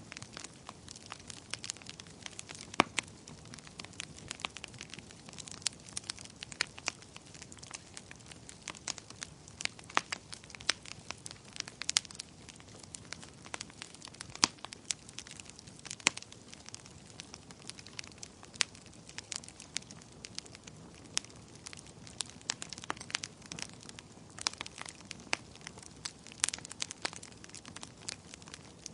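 Wood fire crackling: frequent sharp pops and snaps at uneven intervals over a low steady hiss of burning.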